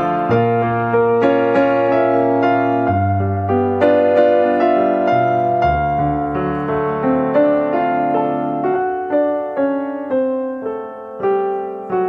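Background piano music: a gentle melody of struck notes over held bass notes that change every few seconds.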